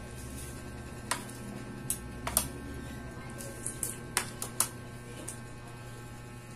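Cooked prawn shell cracking and snapping as it is peeled by hand: a scatter of sharp clicks, thickest in the middle, over a steady low hum.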